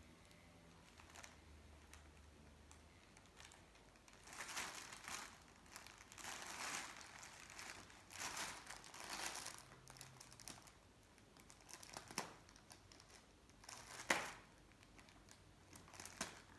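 Thin plastic cover of a cat play mat crinkling in irregular bursts as a cat plays on it. The crinkling starts a few seconds in, with one sharp, louder crackle near the end.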